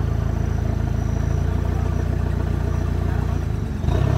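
Off-road 4x4's engine running steadily, then revving up just before the end.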